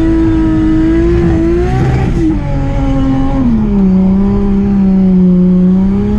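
Big-turbo 2JZ inline-six in a Nissan 240SX drift car running hard at high revs. The engine note drops in pitch in two steps, a little past two seconds and about three and a half seconds in, as the revs fall, then creeps back up near the end.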